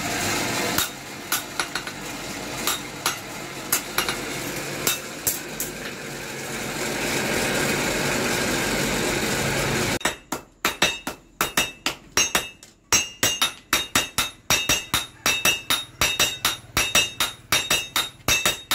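Blacksmiths' hammers striking a red-hot blade on an anvil. At first scattered blows ring out over a steady background noise. About halfway through, several hammers start a fast run of strikes, about three or four a second, each with a clear metallic ring.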